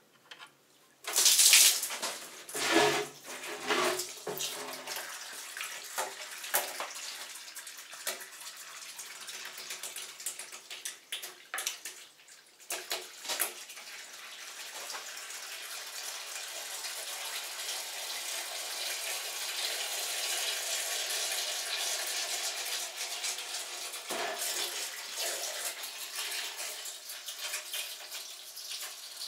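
Used engine oil draining out of a car's oil sump into a drain pan: a sudden gush and splashing about a second in as the drain plug comes free, then a steady pouring stream.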